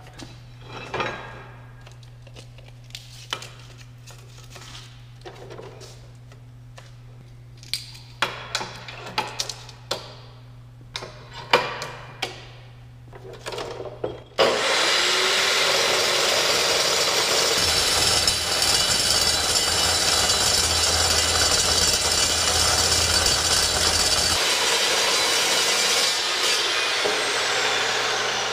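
Aluminium bar stock clanking as it is handled and clamped, then a toothed-blade DeWalt chop saw starting abruptly about halfway through and cutting through 4-inch aluminium bar with a loud, steady noise. Near the end the saw is released and the blade spins down with a falling whine.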